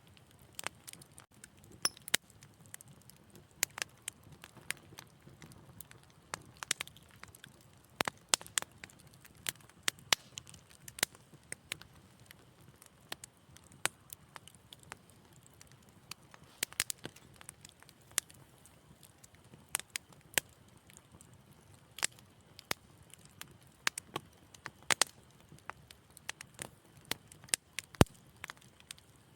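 Wood fire crackling in a fireplace: irregular sharp pops and snaps, several a second at times, over a faint low hiss of burning.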